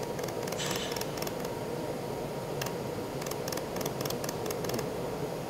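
300-watt pulsed laser welder firing short pulses as 420 stainless filler wire is fed into a die: sharp ticks that come irregularly and in quick runs, over the steady hum of the machine's cooling fan.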